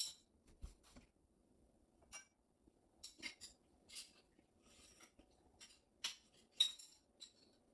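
Scattered light clicks and clinks of kitchenware being handled and put away while a dishwasher is emptied, about seven short knocks at uneven intervals, the sharpest a bit after six seconds in.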